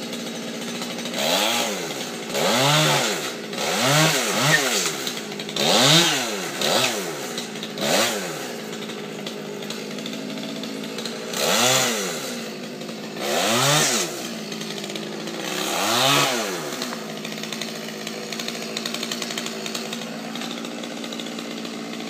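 Stihl chainsaw idling and revved repeatedly in short bursts, its pitch climbing and falling back each time, about ten times. It then settles to a steady idle for the last few seconds.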